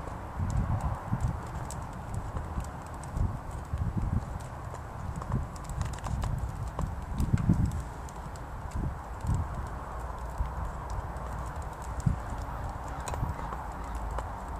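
Wind buffeting the microphone in irregular low gusts and thumps, over a faint steady background rumble.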